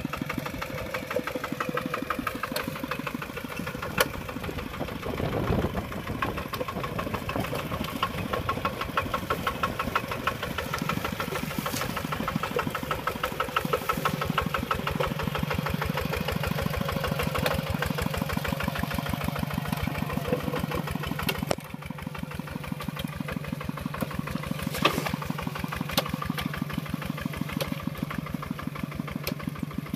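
Kubota RT140 Plus walking tractor's single-cylinder diesel engine running under load in wet mud, with an even, rapid beat of firing strokes. A few sharp knocks sound over it, and it gets a little quieter about two-thirds of the way through.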